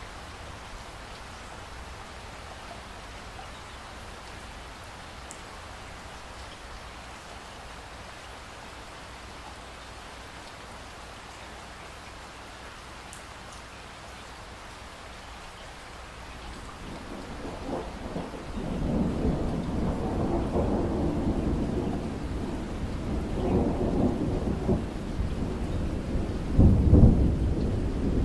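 Steady rain falling, then thunder that rumbles in about two-thirds of the way through and rolls on loudly in waves, with its loudest clap near the end.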